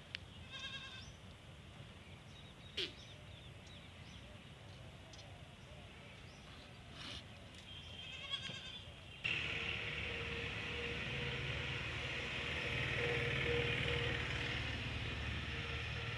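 A flock of sheep and goats, a few short bleats standing out against quiet field sound, about half a second in and again about eight seconds in. About nine seconds in, the sound cuts abruptly to a louder, steady hiss with a low hum.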